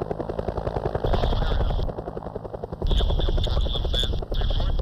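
Bell UH-1 Huey helicopter taking off and climbing away low overhead, its main rotor beating in a fast, steady chop. The noise swells in louder surges every second or two.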